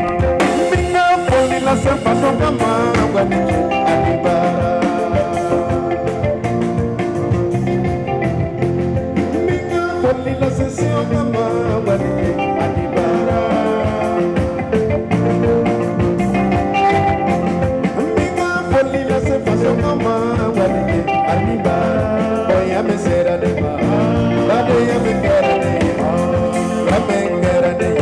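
Live band music: a man singing into a microphone over electric guitar and keyboard, amplified through the PA.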